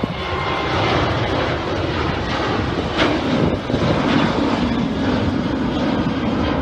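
Jet engines of a Boeing 737 at climb power just after takeoff, a steady rushing roar from the aircraft passing overhead, with a brief knock about three seconds in.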